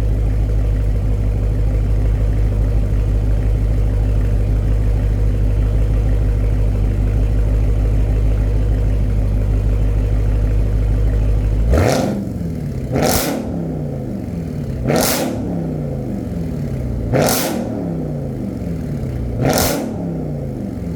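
Supercharged V8 exhaust idling with a deep, steady drone, then about twelve seconds in, five quick throttle blips about two seconds apart, each revving up sharply and falling back to idle.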